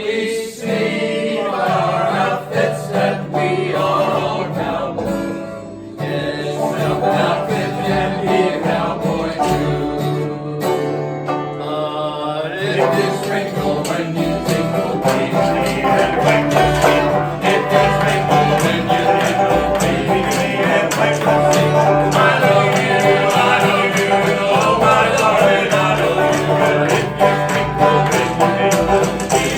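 Live band playing country-style music on plucked string instruments. The playing fills out and gets busier about twelve seconds in.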